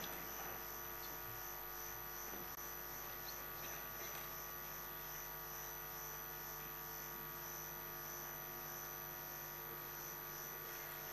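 Steady electrical hum made of several fixed tones, with a faint high whine pulsing at an even rate.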